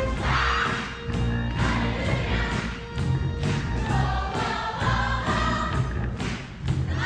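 Wind orchestra playing a funk tune over a steady bass beat, with a group of voices singing along and a cymbal-like crash about half a second in.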